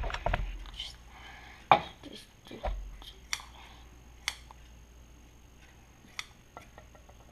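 Scissors snipping into a squishy ball filled with water beads: about half a dozen sharp, irregular snips, the loudest in the first three seconds, with some handling rumble.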